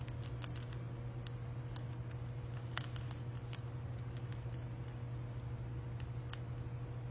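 Scattered small sharp clicks and handling noises, irregular and about a dozen in all, the loudest near the middle, over a steady low hum.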